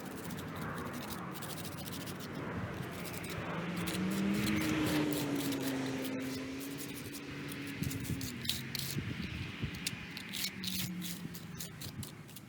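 Scraping and scrubbing on a stone surface during hand cleaning of a headstone, with a run of sharp, irregular clicks in the second half.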